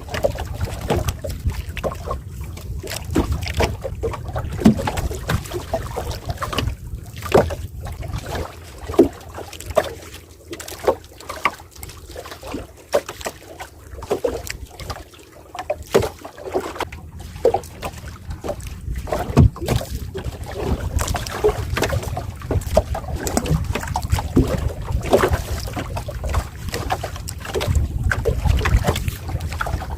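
Wind buffeting the microphone as a steady low rumble, with irregular knocks and clicks throughout.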